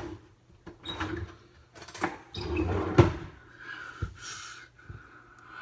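Kitchen cupboard and drawer handling: a handful of knocks and a short clatter, the loudest knock about three seconds in.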